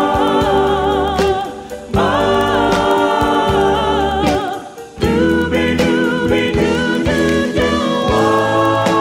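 Background music: a song with sung vocals in long held notes over a steady bass line. The phrases break briefly about two and five seconds in.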